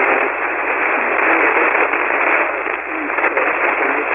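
Single-sideband shortwave receiver audio on the 40-metre band: a steady, dense hiss of static, with a weak station's voice buried in it and barely showing through.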